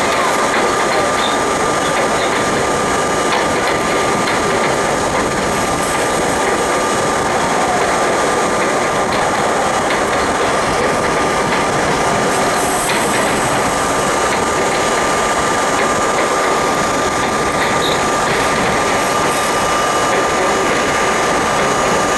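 R32 subway train running steadily at speed: a constant rumble and rattle of wheels on rail, with a steady high hum underneath.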